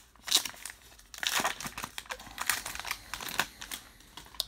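Baseball card pack's foil wrapper being torn open and crinkled by hand, in a run of short crackles.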